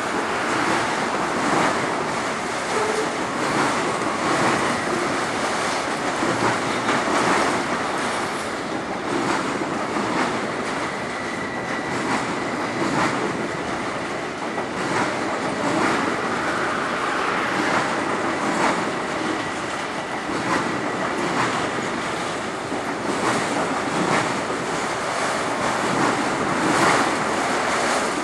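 A freight train of autorack cars rolling past on the rails: a steady rush of wheel and car noise with faint clicks. Wind buffets the microphone throughout.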